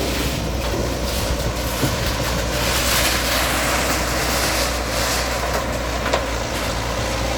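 A bulldozer's diesel engine running steadily, with a sharper knock about six seconds in.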